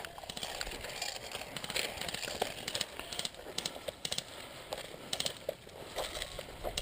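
Short rapid bursts of airsoft gunfire, clusters of sharp clicks coming every second or two, over a low rustle.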